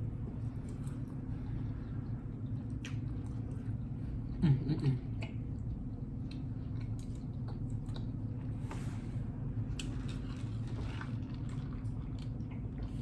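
A person chewing and eating close to the microphone, with small wet mouth clicks and smacks over a steady low hum. About four and a half seconds in there is a short, louder sound with a wavering pitch.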